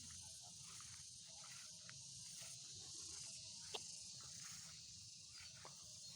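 Faint, steady high-pitched insect chorus, with a few faint clicks, one sharper click a little after the middle.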